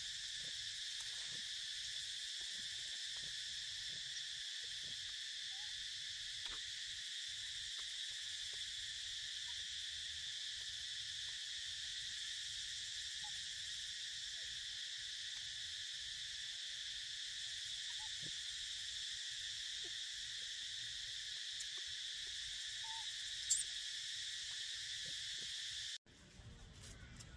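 Steady high-pitched insect chorus, a continuous shrill buzzing drone. It cuts off abruptly near the end, and a brief sharp chirp comes just before.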